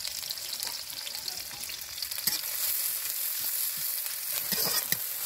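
Chopped onion and chillies sizzling in hot oil in a wok, with a spatula stirring and scraping against the pan in a few short strokes, more of them near the end.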